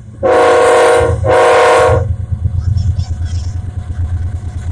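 Diesel freight locomotive's air horn sounding two loud, even blasts, each a little under a second, over the low rumble of the approaching train's diesel engines, which carries on after the horn stops.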